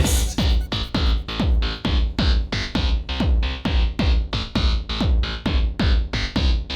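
Electronic music with a fast, steady kick-drum beat, about four beats a second.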